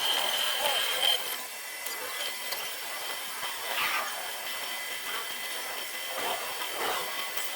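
Workshop tool work: a steady high machine whine that stops about a second in, followed by irregular scraping and rasping of a tool working material.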